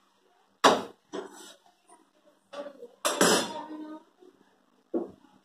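Kitchen utensils knocking and clattering: about five sharp knocks, the loudest about half a second in, and a longer clatter about three seconds in.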